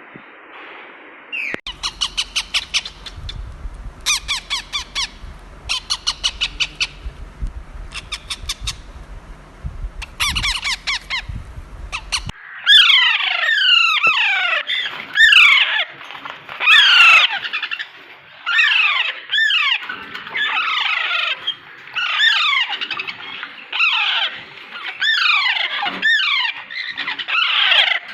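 Birds calling. First come short groups of rapid rattling clicks over a low hum. About twelve seconds in, it changes to louder, harsh squawking calls that swoop in pitch and repeat about once a second, several overlapping.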